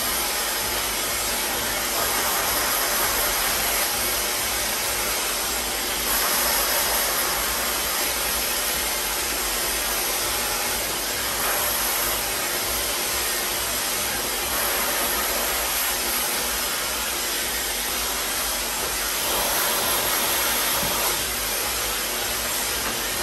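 Handheld hair dryer running steadily, blowing onto wet, curly hair held taut on a round brush during a straightening blow-dry.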